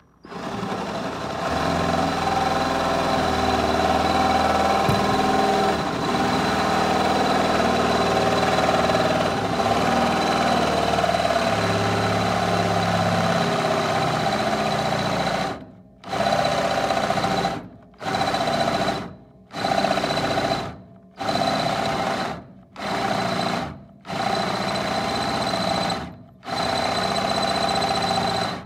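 Cordless drill boring a hole, running steadily for about fifteen seconds, then stopped and restarted in short bursts about seven times. The drill has been acting up and is running on a swapped battery.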